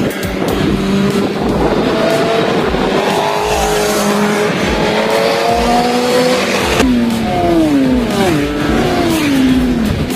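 Racing motorcycle engines at high revs on a circuit, the engine pitch climbing steadily; about seven seconds in the sound cuts abruptly and the pitch then slides downward as a bike passes and slows.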